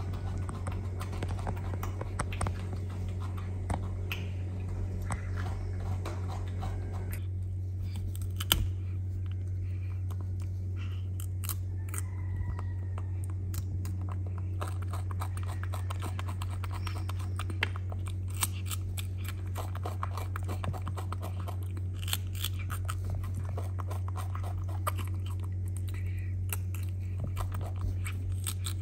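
A baby macaque biting and chewing a raw cucumber, giving many small, quick clicks, over a steady low hum.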